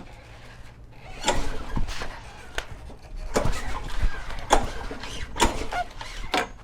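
Lawnmower engine turned over by several pulls on its recoil starter cord, about a second apart, without firing. A compression tester is screwed into the spark-plug hole and the pulls build its gauge reading.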